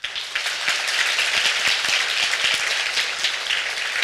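Audience applauding: a dense, steady crowd of clapping that breaks out suddenly at the close of a talk.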